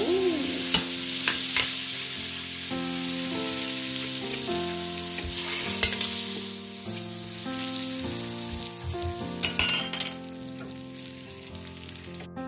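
Butter sizzling as it melts in a hot steel wok, stirred with a metal spatula that scrapes and taps the pan now and then. The sizzle eases somewhat after about ten seconds.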